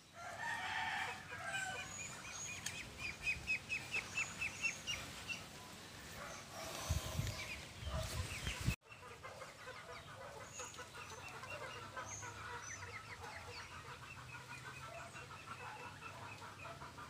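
Backyard poultry calling: rapid runs of short clucking calls with scattered softer calls, and a brief drop-out about nine seconds in.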